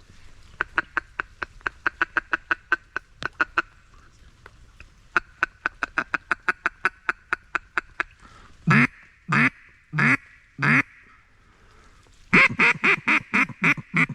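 Mallard duck call blown to bring in a circling mallard. A rapid feeding chuckle of quick clucks, about five a second, runs through the first half. Then come four single loud quacks, and near the end a fast string of quacks as a comeback call.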